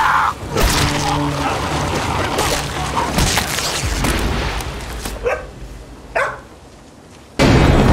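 Heavy splashing and thrashing water as an alligator drags a man under, then two short high dog cries about five and six seconds in. A sudden loud burst of noise comes in near the end.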